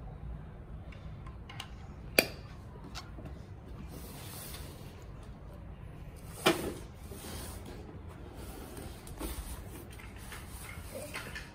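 Hard plastic toy pieces being handled: two sharp clacks about four seconds apart over low rustling, from a toy garbage truck and its plastic wheelie bins being set down and moved on cardboard.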